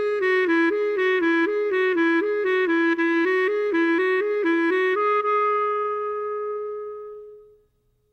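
Clarinet playing a slurred left-hand finger exercise: quick triplet figures moving among a few neighbouring low notes, then about five seconds in a long held final note that fades out about two and a half seconds later.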